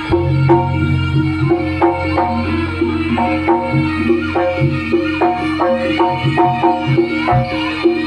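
Jaranan gamelan music: struck metal gamelan notes ringing in a quick, even rhythm over drums, with a steady low held tone beneath.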